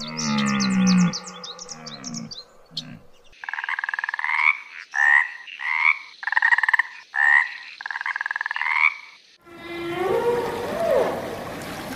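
A low, moaning animal call with bird chirps over it, then from about three seconds in a tree frog calling in six or so rasping, pulsed croaks. Near the end, an underwater hiss with humpback whale moans gliding in pitch.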